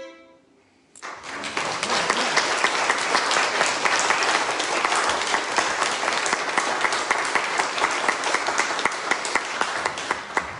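Audience applauding, breaking out about a second in after a short hush and dying away near the end.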